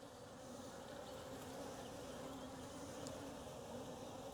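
Honey bees buzzing around an open hive: a steady low hum of many wings.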